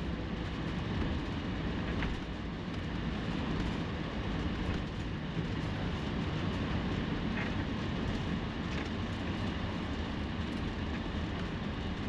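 Steady low engine and road noise inside a vehicle's cab, driving slowly across a parking lot.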